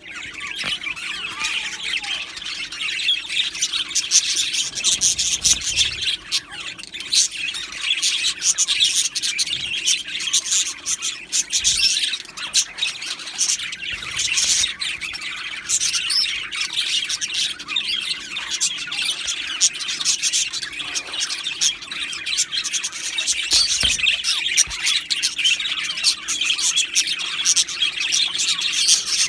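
A flock of budgerigars chirping and chattering, many birds calling over one another in a continuous, dense warble with occasional squawks.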